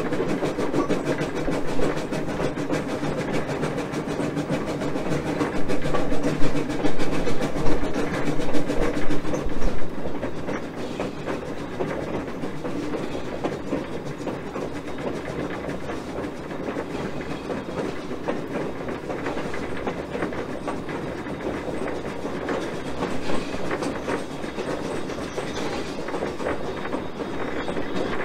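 1920 steam yard-switcher locomotive running along the track, heard from its pilot: steady wheel-and-rail running noise with a rapid clickety-clack. It grows louder for about four seconds starting about six seconds in, then settles back to a steady run.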